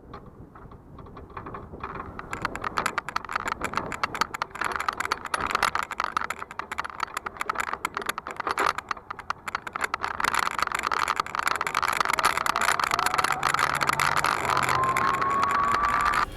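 Electric mobility scooter (S12X Vita Monster) riding along, its body and load rattling with dense, rapid clicking that builds up over the first few seconds. A faint whine rises in pitch near the end.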